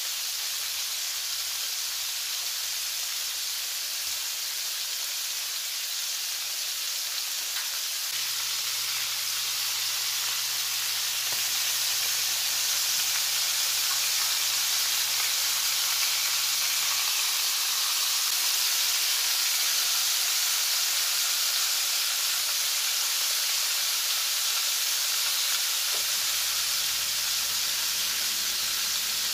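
Flour-coated chicken wings deep-frying in a pan of hot oil: a steady sizzle of bubbling oil, getting slightly louder about ten seconds in.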